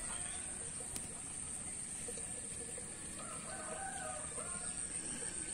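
A rooster crowing once, starting about three seconds in, over a steady high-pitched whine.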